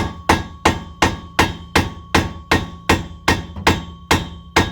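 Ball-peen hammer striking metal in a steady run of sharp blows, about three a second, with a metallic ring sustained between the blows.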